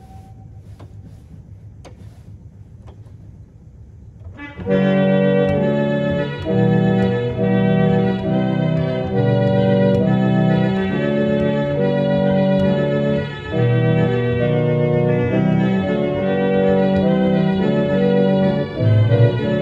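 1890 Roques pipe organ's Trompeta 8′ reed stop on the second manual (Récit), with tremolo, playing a series of sustained chords that begin about four and a half seconds in. Before that there is a short pause with a few faint clicks.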